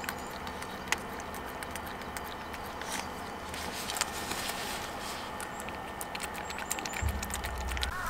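Small dog licking at its medicine on a wooden tray: faint wet clicks and smacks, scattered at first and thicker in the second half, over a steady low hum. A soft low rustle near the end.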